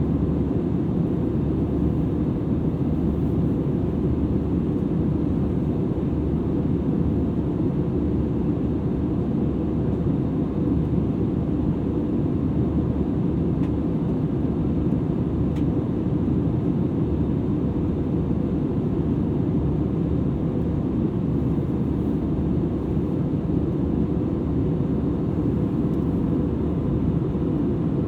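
Airbus A320-200ceo cabin noise in cruise, heard from a rear seat: a steady, even rumble of engine and airflow noise with a faint steady hum running through it.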